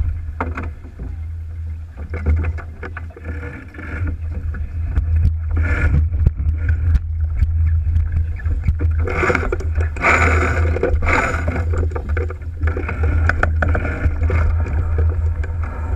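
Sailboat under way: water rushing and splashing along the hull with wind buffeting the microphone as a steady low rumble, and scattered knocks and clicks. The water noise swells louder for a few seconds past the middle.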